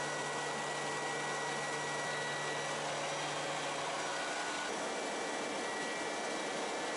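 Steady drone of a C-2 Greyhound's twin turboprop engines heard inside the cockpit in flight: a dense, even hiss with a few faint steady tones. A low hum under it drops out about four seconds in.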